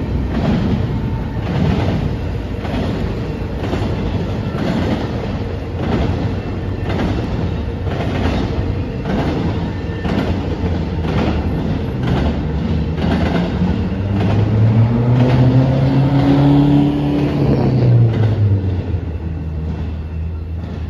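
Freight train cars rolling through a street grade crossing, their wheels clacking in a steady rhythm about every three-quarters of a second. About twelve seconds in, an engine's pitch rises, holds for a few seconds, then falls away.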